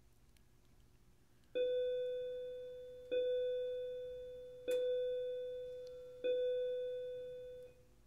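Four identical electronic chime tones, each struck sharply and fading slowly, about a second and a half apart, most likely from an EV3 brick's built-in speaker while it boots.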